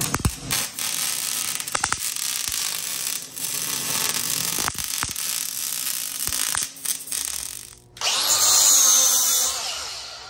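Stick (arc) welding on steel: the arc crackles and hisses steadily, broken by a few short stops as the rod is struck again. About eight seconds in, an angle grinder spins up with a loud high whine.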